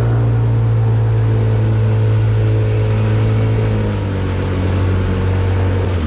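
A small fishing boat's motor running steadily at speed, a loud low drone that drops slightly in pitch about four seconds in.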